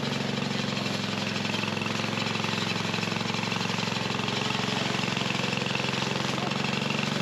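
173 cc engine of a Hankook Power Ssakssuri HKJ-4848 self-propelled weed mower, running steadily at an even speed as the mower starts cutting into tall weeds.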